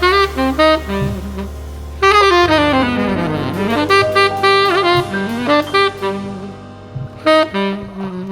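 Background jazz music led by a saxophone playing a melody with sliding notes over a bass line.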